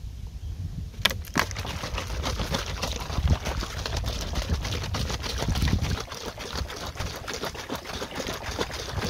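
Rice-wash water sloshing in a plastic water bottle shaken hard by hand, a rapid, continuous slosh that starts about a second in. The shaking dissolves the sugar that has settled at the bottom into the rice-wash water for a yogurt-started microbial ferment.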